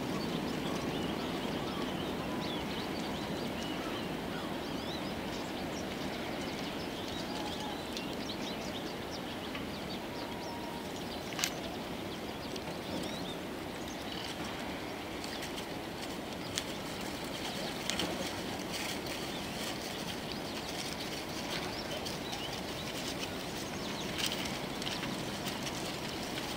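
Steady outdoor background noise with faint high chirps and squeaks scattered through it, and a few sharp clicks.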